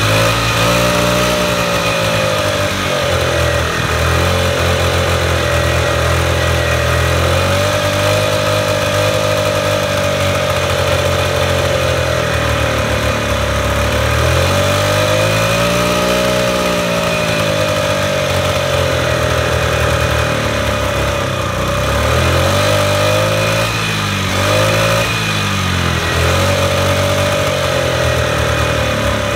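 Honda Today scooter's 49 cc four-stroke single running, heard at the muffler: it idles steadily, then is revved up and eased back down in slow swells several times.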